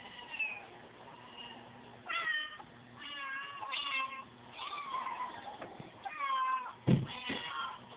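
Cat meowing over and over, about six separate meows that waver up and down in pitch. Near the end, a sharp thump is the loudest sound.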